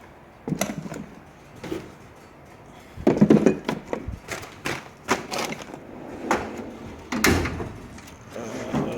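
Tools and drawers of a mechanic's tool chest being handled: a series of knocks and clatters, loudest about three seconds in and again about seven seconds in.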